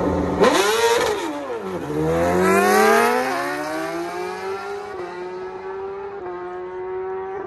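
Two naturally aspirated hand-clutch drag-racing motorcycles launching off the start line, engines revving hard. The pitch climbs and drops back with each upshift, and the engines fade as the bikes race away down the strip.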